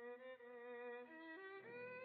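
Soundtrack music: a violin playing slow held notes with vibrato, climbing in steps to a higher note in the second half.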